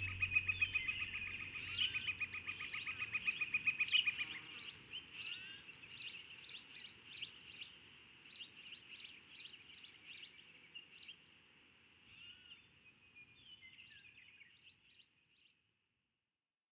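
Birds calling: a fast, even trill for the first few seconds, then a run of short, high chirps that grow fainter and fade out shortly before the end.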